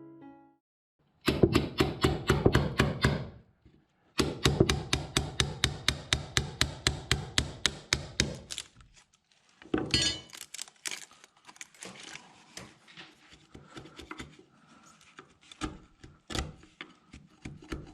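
Rapid hammer blows on wood, about six or seven strokes a second, in a short run and then a longer one that fades toward its end. Lighter, scattered knocks follow.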